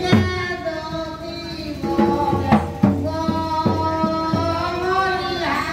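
Live folk music: a man singing held, wavering notes through a microphone and loudspeaker, accompanied by hand drums beating low strokes at uneven intervals.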